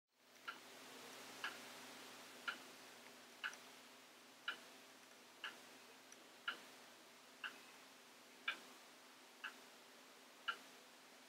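A clock ticking about once a second, over faint steady room hum.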